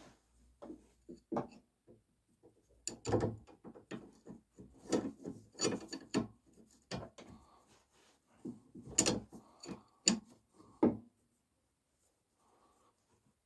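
Hand tools working on the lower nut of a Renault Duster's anti-roll bar link: irregular metal clicks, knocks and scraping as the wrench and hex key are fitted and turned, with a short pause near the end.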